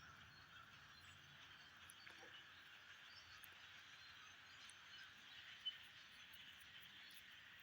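Near silence: a faint steady background hiss, with one brief faint tick a little after halfway.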